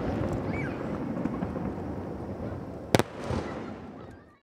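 Aerial fireworks shells bursting: a steady rumble of booms and crackle, with one sharp, loud bang about three seconds in. The sound cuts off abruptly near the end.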